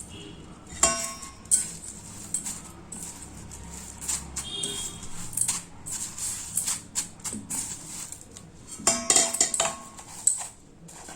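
Chicken pieces being pressed and turned in a bowl of crushed cornflakes: light rustling with scattered clinks and taps of the dish, busiest about a second in and again near the end.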